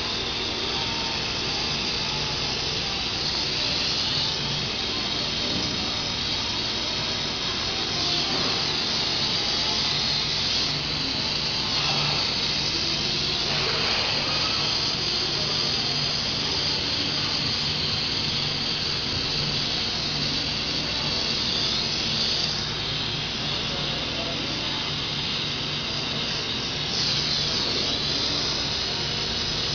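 Steady machine noise: a constant low hum under a loud hiss, with the hiss swelling and easing now and then.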